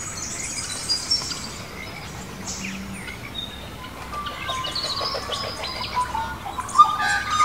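Several birds chirping and singing: short chirps, trills and quick rising and falling whistles, sparse at first and busier in the second half.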